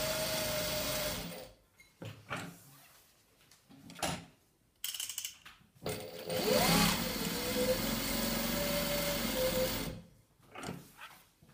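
Juki DDL-8100E single-needle lockstitch industrial sewing machine stitching through denim in stop-start runs. A run stops about a second and a half in and is followed by a few short bursts of stitches. From about six seconds a longer run begins, its whine rising as the machine speeds up, then holding steady for about three seconds before it stops. A couple of brief bursts come near the end.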